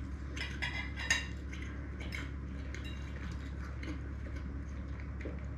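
Light, irregular clicks and clinks of cutlery against a plate while eating, over a steady low hum.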